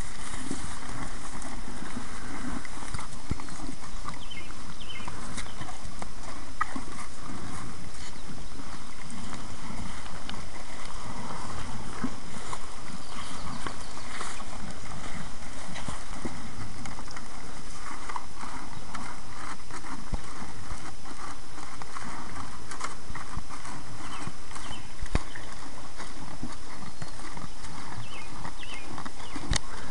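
Steers moving and feeding on grass close to the microphone: scattered soft knocks and clicks over a steady hiss.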